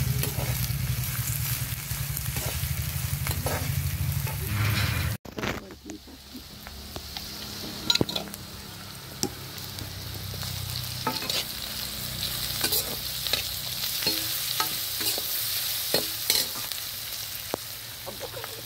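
Onion and green chili slices sizzling in hot oil in an iron kadai, with a steel slotted spatula scraping and clicking against the pan as they are stirred. A low rumble underlies the first five seconds and cuts off suddenly.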